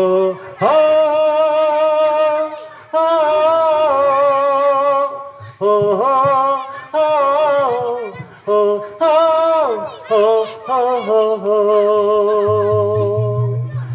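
A single high-pitched voice singing unaccompanied, holding long wavering notes in phrases of a couple of seconds with short breaks between them, in the sung style of a Malay wayang kulit puppeteer.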